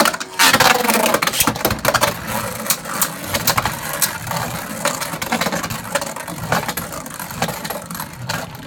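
Two Beyblade Burst tops, Wonder Valtryek and Vise Leopard, launched into a plastic stadium right at the start. They then spin with a steady whirring hiss and many small clicks and knocks as they strike each other and the stadium.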